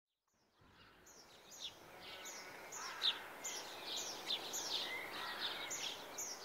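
Birdsong in open countryside: quick, high notes that fall in pitch, about two a second, over a light steady outdoor background. It fades in from silence just after the start.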